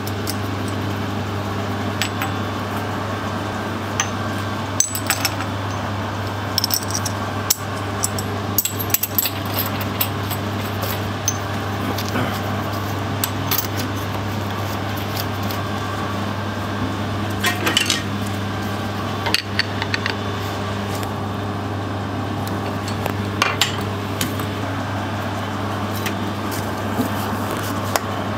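Small metal tooling clicking and clinking as an ER collet chuck and its collet are handled and assembled for a lathe tailstock, over a steady low hum.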